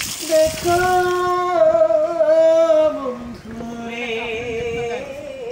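A single voice singing a slow melody in long held notes that glide from one pitch to the next.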